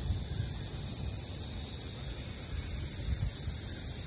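Steady high-pitched chorus of crickets, with a low rumble of wind on the microphone.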